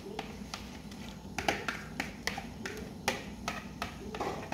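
Irregular sharp clicks and light taps from cookware, a few a second, as whipped egg foam is scraped from one pot into another, over a low steady hum.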